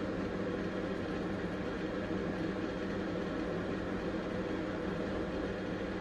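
Steady droning background hum that stays the same throughout, with no separate clicks or knocks.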